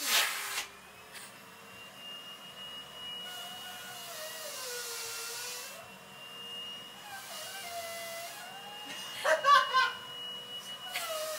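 Vacuum cleaner running with a steady hiss and high whine, its motor note wavering up and down as the suction changes, with a louder rough burst about nine and a half seconds in.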